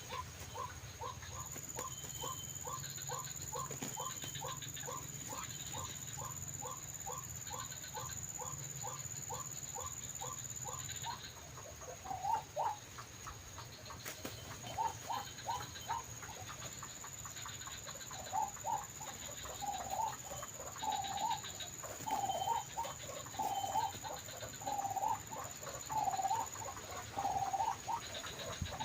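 White-breasted waterhen calls. An even run of short repeated notes, about two or three a second, goes on for roughly the first eleven seconds. From about twelve seconds in come louder, irregular 'ruak' calls.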